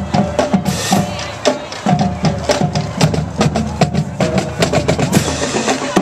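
Marching band passing and playing, its drums beating a steady rhythm of sharp hits under short held notes.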